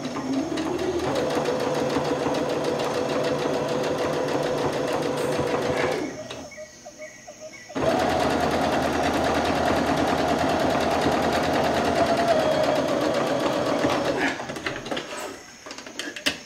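Electric sewing machine stitching a hem through folded cotton fabric, speeding up over the first second and then running at an even speed. It stops for a couple of seconds partway through, then starts again abruptly and runs steadily for several more seconds, with a few light clicks near the end.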